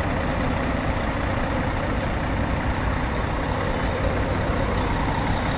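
Diesel coach engines idling in a steady low rumble, with two brief hisses about a second apart past the middle.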